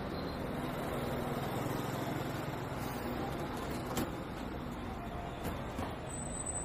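Steady traffic noise from cars and buses on a busy city road, with a sharp click about four seconds in and a thin high whine near the end.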